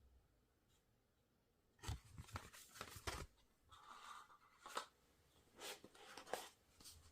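Packaging of a boxed Blu-ray set being handled: after a near-silent start, a quick flurry of crackles and clicks, a short rustle, then a few separate taps and clicks.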